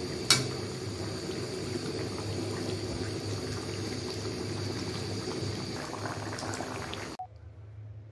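Fish and taro curry bubbling steadily as it simmers in an iron kadai, with one sharp tap of the metal spatula against the pan just after the start. The bubbling cuts off suddenly near the end.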